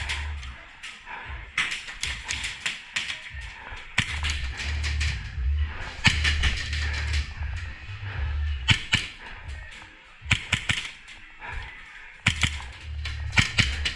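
Music with a heavy bass line, cut through by sharp cracks that come in quick clusters several times.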